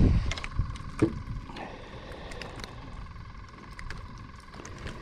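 Light scattered clicks and taps, the sharpest about a second in, from handling a small speckled sea trout just landed on a float rig, over a low rumble and a faint steady hum.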